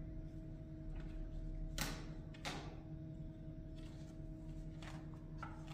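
A steady low hum with two sharp knocks about two seconds in, half a second apart, and a few fainter knocks near the end.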